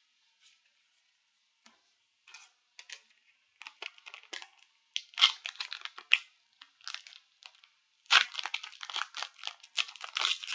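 A foil Yu-Gi-Oh! booster pack being torn open and its wrapper crinkled. A few light clicks come first, then crackly tearing and crinkling that gets busier and loudest for the last couple of seconds.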